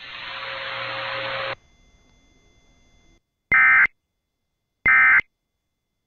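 Receiver hiss stops about a second and a half in. Then come two short, loud bursts of EAS SAME data tones, a harsh buzzy warble, about a second and a half apart: the end-of-message code that closes the alert.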